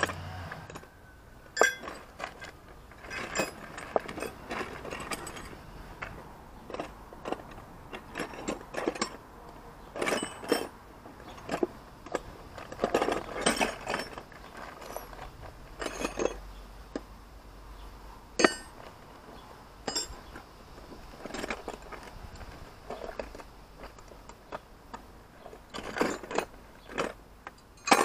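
Metal hand tools clinking and rattling as they are handled and rummaged through, in irregular bunches of sharp clinks with short pauses between.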